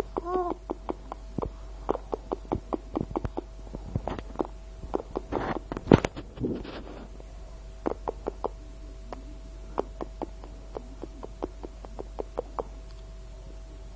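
A baby's short coo just at the start, over a run of irregular sharp clicks and taps, several a second for the first few seconds and sparser later. About six seconds in comes a louder scuffling stretch with the sharpest knock. A faint steady whine sits underneath throughout.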